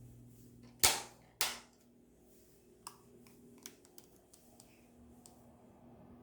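Two sharp knocks about half a second apart, followed by a few faint scattered clicks.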